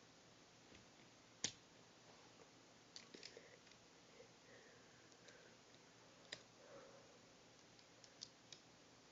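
Lego pieces clicking and tapping as they are handled and pressed together, scattered over near silence: one sharp click about a second and a half in, a few small clicks around three seconds, another near six seconds, and two more near the end.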